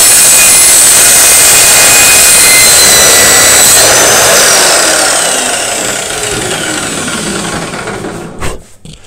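Handheld electric circular saw running and cutting a thin strip off a board. About four seconds in it is switched off, and the motor and blade wind down with falling pitch. A single knock comes near the end.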